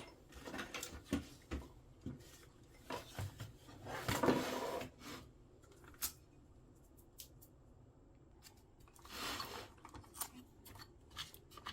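Hands dismantling a vintage printing calculator: scattered small clicks and handling knocks on its parts, with a longer scraping rub about four seconds in and another, softer one about nine seconds in.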